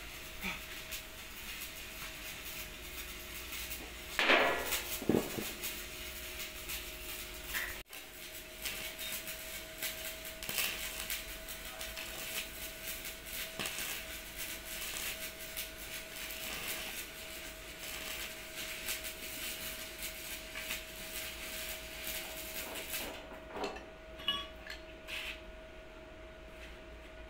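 Stick (arc) welder crackling as a bead is laid along the edge of a steel excavator panel, repairing a corroded section. Two sharp metal knocks come about four and five seconds in. The crackle starts about eight seconds in and stops a few seconds before the end.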